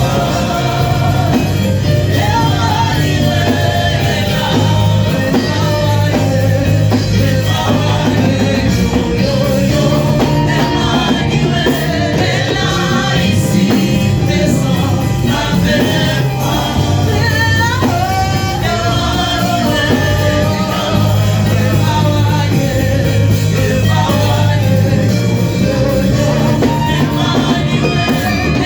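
Gospel worship music: singing over a band with a strong, steady bass line.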